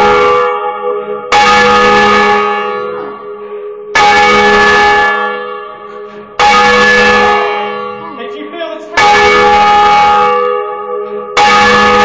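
A single church bell rung full circle in its tower and heard close up in the bell chamber. It strikes five times at a steady pace of about one stroke every two and a half seconds, each loud clang ringing on and fading before the next.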